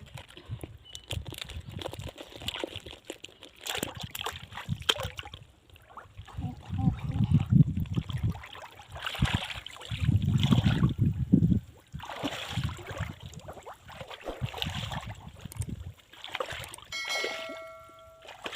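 Pond water sloshing and splashing in irregular bursts, with two heavier surges about seven and ten seconds in.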